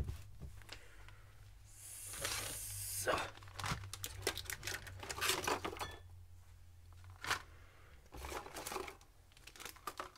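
Plastic packaging being handled: irregular crinkling and rustling with scattered light clicks, opening with one sharp knock.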